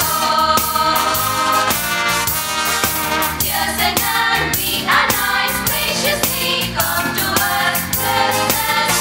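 Choir of young women singing together into microphones, accompanied by guitar over a steady beat.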